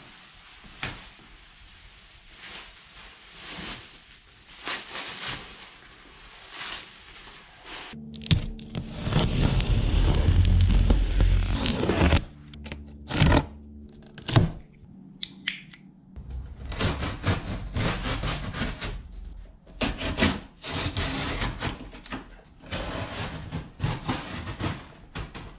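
Unboxing a large cardboard box: plastic stretch wrap crackling and tearing as it is pulled off, a utility knife slicing through packing tape, and cardboard flaps scraping and thumping as they are opened. The loudest part is a few seconds of dense rustling and low thuds about a third of the way in.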